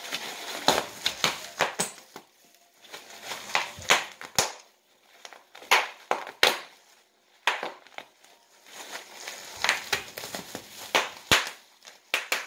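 Plastic bubble wrap being bitten and popped by a dog: sharp, irregular pops mixed with crinkling of the plastic, coming in flurries with short lulls between.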